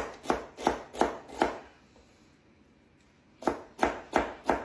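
Knife chopping vegetables on a cutting board: five quick chops about three a second, a pause of nearly two seconds, then four more.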